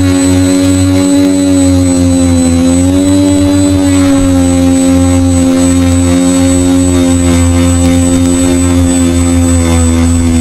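FPV drone's electric motors and propellers running in flight, heard close up as a loud, steady buzzing drone whose pitch rises slightly a couple of seconds in and eases off a little near the end as the throttle changes. A thin high steady whine sits above it.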